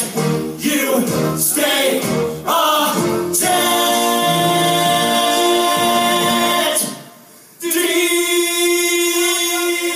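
Two men singing a Broadway show tune on stage. The melody moves at first; from about three and a half seconds in they hold long notes. The sound drops away briefly about seven seconds in, then another long note is held.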